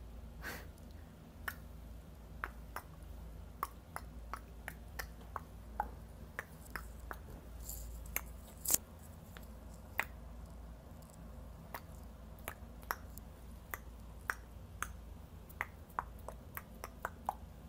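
Fingers being snapped over and over: a string of short, irregular clicks, most of them faint, with a few sharper ones near the middle.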